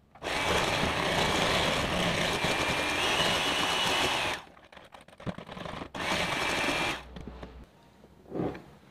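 Electric hand mixer with twin wire beaters running in a bowl of liquid batter for about four seconds, stopping, then running again for about a second. A short thud near the end.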